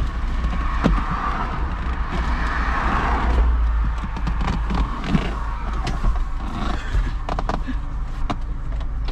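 Mazda MX-5 Mk2's manual soft top being hauled up by hand over the cabin: fabric and frame rustling and creaking, with a run of clicks and knocks near the end as it comes over onto the windscreen header. A steady low rumble from the car runs underneath.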